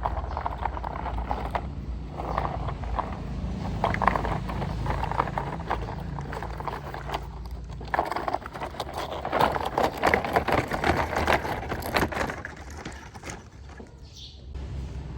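Heavy vehicle engine running low and steady beneath a dense, irregular clatter of knocks and clicks, louder between about eight and twelve seconds in.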